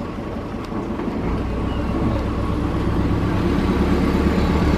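Motorhome engine running, heard from inside the vehicle, growing louder about a second in as the vehicle is eased onto wooden blocks to level it for its gas fridge.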